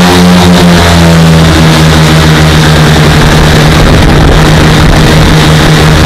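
Lazair ultralight's engines droning steadily in cruise flight, heard from the cockpit with a constant rush of air noise. The pitch eases down slightly about a second and a half in.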